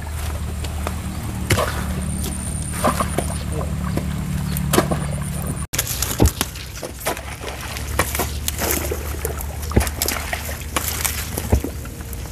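Wet plants being picked by hand in a muddy, flooded field: irregular snaps and rustles of genjer (yellow velvetleaf) stems and leaves, with sloshing in the mud and water, over a steady low rumble.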